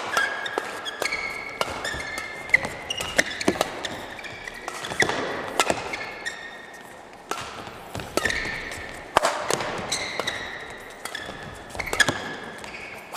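Badminton doubles rally: repeated sharp cracks of rackets hitting the shuttlecock, with court shoes squeaking on the floor between shots.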